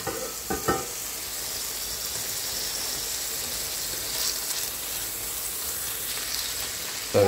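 Steak frying with garlic in a hot pan: a steady sizzle with a few sharper crackles.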